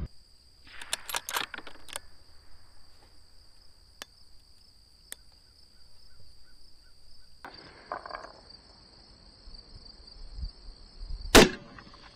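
A single rifle shot near the end, the loudest sound, over a steady high chirring of crickets. About a second in there is a quick run of clicks from the rifle being handled.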